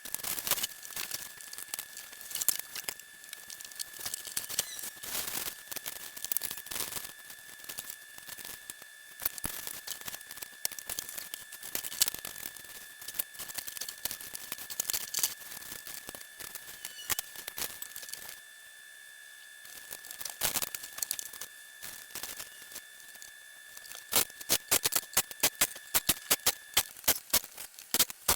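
Rustling, crinkling and clicking of parts and packaging being handled during assembly, over a faint steady high-pitched tone. About four seconds before the end, a fast run of sharp, louder clicks starts.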